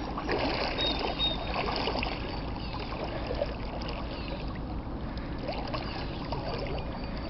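Water splashing as a hooked fish thrashes at the surface and is lifted out by hand in the first couple of seconds, then softer splashing and lapping of water around a person wading waist-deep.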